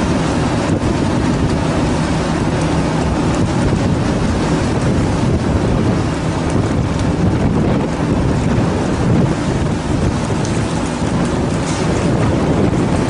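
Fishing boat's engine running steadily at a low pitch, under wind buffeting the microphone and the wash of the sea.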